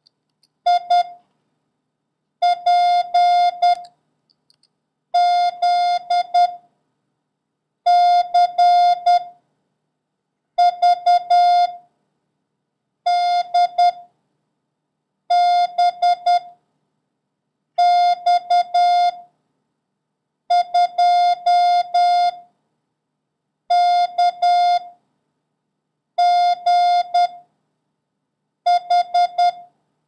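Morse code sent as a steady beeping tone of about 700 Hz, keyed in dots and dashes one character at a time, with a long pause after each: about a dozen characters, one every two and a half seconds. It is a random run of letters, numbers and punctuation sent for copying practice.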